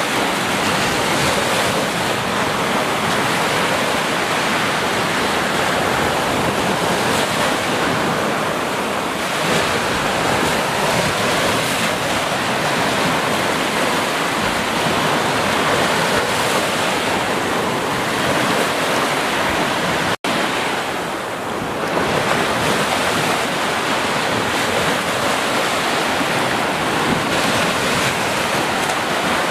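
Small ocean waves breaking and washing up a sandy beach in foamy surf: a steady rushing wash that swells and ebbs a little. The sound cuts out for an instant about two-thirds of the way through.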